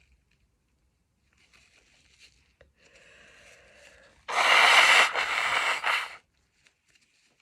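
A woman sneezing: a drawn-out breathy build-up about three seconds in, then a loud, noisy burst lasting about two seconds. Faint sniffs and breaths come before it.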